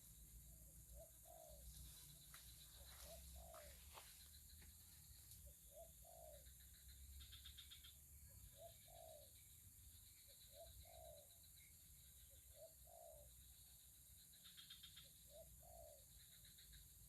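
A bird's low cooing call, a short note followed by a longer one, repeated about every two seconds; faint.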